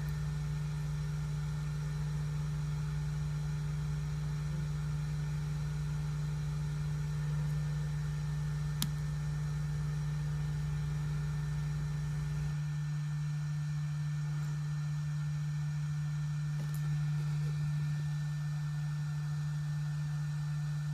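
Heat gun running with a steady motor hum. Its lowest rumble drops away about halfway through, and there is a single faint click near the middle.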